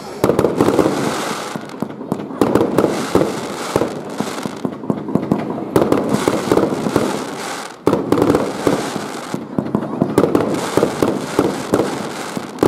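Fireworks bursting one after another: a continuous run of bangs and crackling from aerial shells and their trailing sparks.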